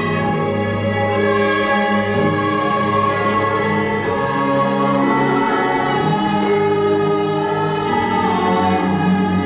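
A small chorus of women singing a slow, sustained Javanese vocal line together with a Western orchestra and a gamelan ensemble, in a continuous, steady texture of held notes.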